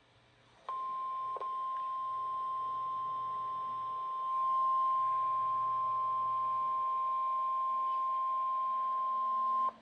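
NOAA Weather Radio warning alarm tone, a single steady 1050 Hz tone, sounding through a Midland WR-120 weather radio's speaker as a weekly test of the alarm. It starts under a second in, grows slightly louder about four seconds in, and cuts off sharply after about nine seconds.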